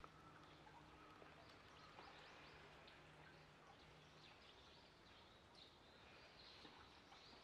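Near silence: faint outdoor ambience with small birds chirping faintly now and then, and a faint low hum that stops about halfway through.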